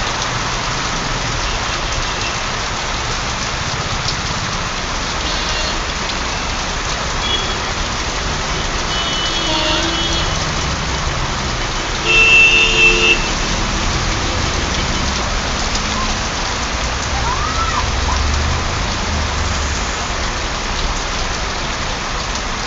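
Heavy rain pouring steadily onto a flooded street, with vehicle horns sounding a few times. The loudest horn blast comes about twelve seconds in and lasts about a second, and a low rumble of traffic follows.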